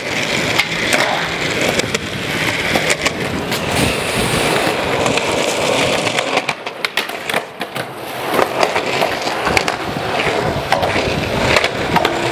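Skateboard wheels rolling on smooth concrete, with repeated sharp clacks of the board's tail and wheels hitting the ground.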